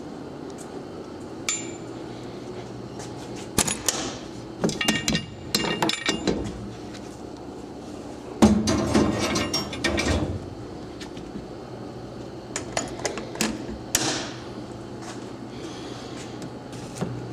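Metal clattering and knocking as a part is handled and set down on the steel mesh grate inside a sandblast cabinet: scattered knocks, then a loud run of clatter about eight seconds in, and a few more knocks later.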